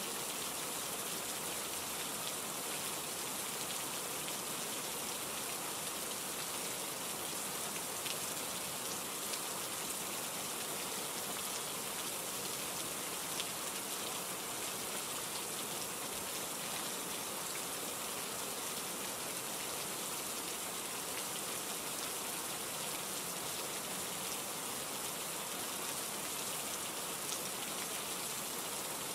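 Steady rain falling, with a constant hiss and scattered faint drop ticks.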